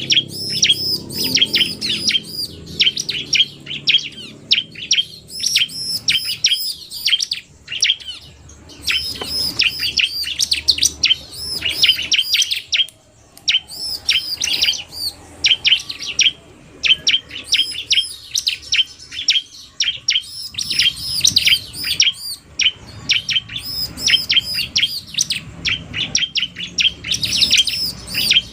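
Ciblek (bar-winged prinia) calls: fast runs of high, sharp chirps repeated many times a second, in bursts broken by short pauses, from a recording that combines a singing male and a calling female.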